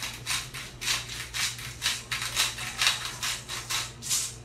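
Hand-twisted sea salt grinder crunching out salt, a gritty rasp repeating about three times a second and stopping near the end.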